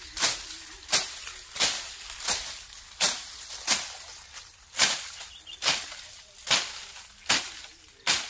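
A hand-held blade chopping through weeds and undergrowth in a steady rhythm, about three strokes every two seconds, each a short sharp swish-and-hit.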